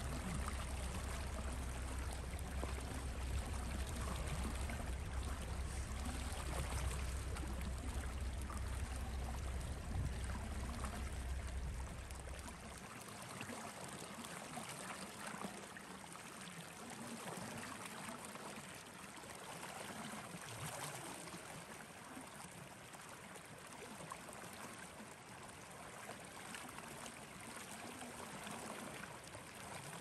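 Wind rushing steadily, with low buffeting rumble on the microphone that stops about a dozen seconds in, leaving a quieter, even rush.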